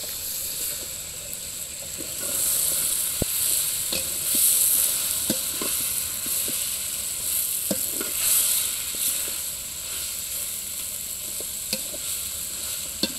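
Onions and freshly added tomatoes sizzling in hot oil in a kadai while being stirred, the sizzle swelling with each stir. The spoon knocks against the pan a dozen times.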